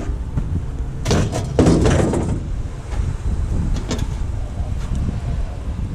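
Knocks and clatters of scrap being handled, clustered about one to two seconds in, with a few sharp clicks later, over a low steady rumble.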